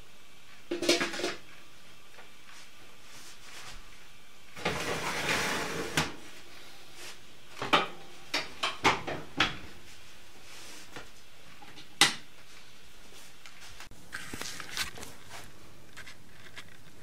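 A lidded stainless steel pot clinks and scrapes as it is set on the oven rack and slid in. This is followed by a quick run of knocks and clunks as the oven door is shut, then a single sharp click and a few small clicks.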